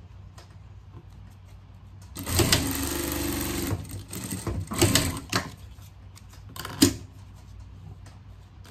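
Industrial lockstitch sewing machine stitching a short seam: one steady run about two seconds in, then several shorter spurts, the last one brief and sharp near the end.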